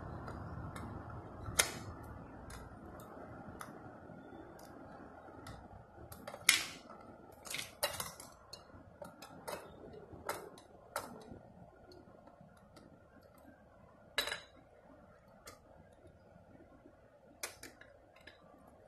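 Irregular clicks and clacks of a First Gear die-cast toy front-loader garbage truck's arms, forks and bin being worked by hand, with a few louder clacks among them. A faint hum fades out over the first few seconds.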